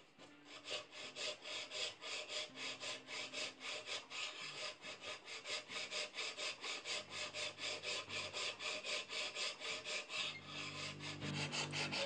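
Steel hand file in a bevel-filing jig rasping across a stainless steel knife blade, in quick, even back-and-forth strokes of about four a second, cutting the blade's bevel.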